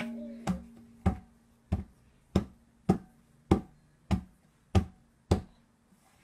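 A baby slapping a pair of tabla drums with open hands. About ten even strikes come a little under two a second, and a pitched drum ring lingers between them. The strikes stop shortly before the end.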